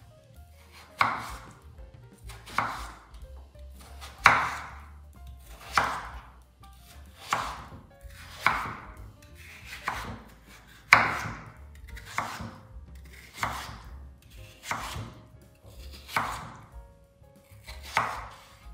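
Kitchen knife chopping vegetables on a cutting board: about a dozen single, even cuts, roughly one every one and a half seconds.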